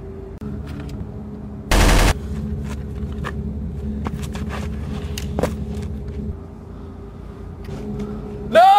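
Gunfire: one loud burst of rapid fire about two seconds in, then scattered sharp cracks, and a short whine that rises and falls in pitch at the very end.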